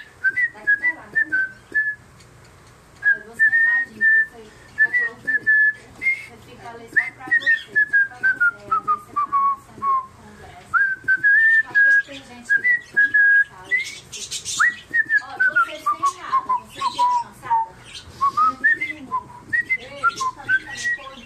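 A cockatiel whistling: runs of clear notes at about the same pitch and twice a long whistle that slides steadily down, with a few short chirps in between.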